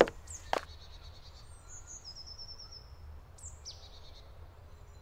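Two footsteps, about half a second apart, then forest birdsong: a quick high trill around two seconds in and a few short falling calls around three and a half seconds in, over a faint steady low background rumble.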